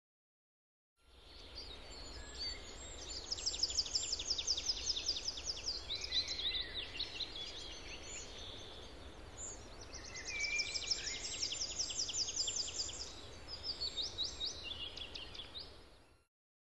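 Songbirds singing over a steady outdoor background hiss: fast trilled phrases of rapidly repeated high chirps, two long runs with looser calls between them. The sound fades in at the start and fades out near the end.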